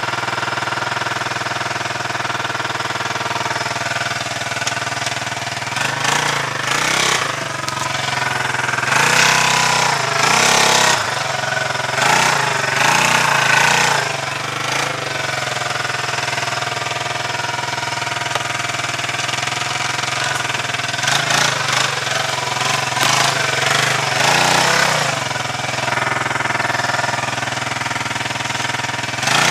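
2003 Suzuki Eiger 400 ATV's single-cylinder four-stroke engine idling, then revved hard in several bursts of a second or two under load while the quad is worked against a log in a mud hole.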